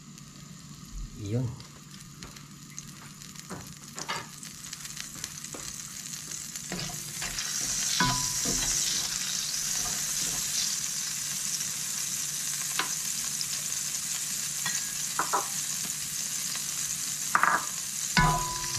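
Margarine melting and sizzling in a hot stainless steel honeycomb wok while it is stirred with a wooden spatula. The sizzle builds and grows clearly louder about a third of the way in, with a few short knocks of the utensil against the pan.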